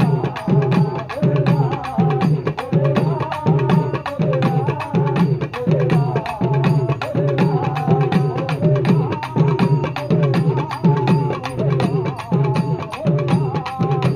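An urumi melam ensemble of hand and stick drums playing a fast, even rhythm. The urumi's rubbed-stick groan wavers in pitch above the dense drum strokes.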